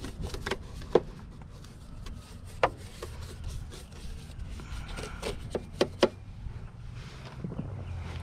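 Brush scrubbing soapy plastic parts of a car's front end, an irregular scratching with a few sharp clicks as the brush knocks against the plastic.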